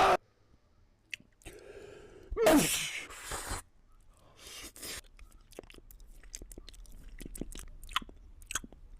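A person sneezes once about two and a half seconds in, after a short breath in, the sneeze falling in pitch. Quick clicking mouth sounds of chewing follow through the rest.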